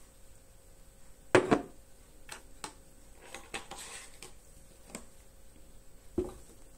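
Cartons and a glass being handled on a tabletop: a dull double knock about a second and a half in, then soft rustling and light clicks, and another knock near the end as a carton is set down.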